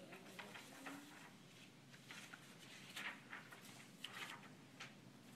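Faint rustling and crackling of paper as pages of a reading packet are handled and turned.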